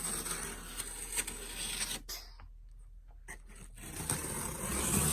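Cardboard shipping box being opened by hand: tape and cardboard flaps rubbing and scraping in two bouts of about two seconds each.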